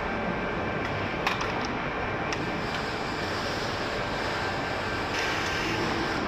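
Addison CNC tube bender running: steady mechanical noise with a faint steady whine and a few sharp clicks, a little louder from about five seconds in.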